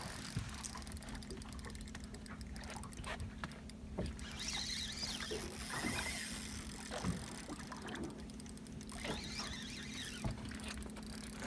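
Steady hum of a boat's engine aboard at sea, with wind and water noise and a few faint high squeaks.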